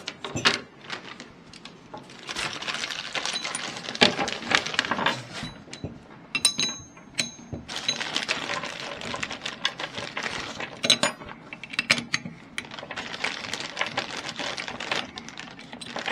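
Clicking, clinking and rattling of small metal parts, nuts, bolts and turbine pieces, handled during assembly, with a brief high ringing about six and a half seconds in.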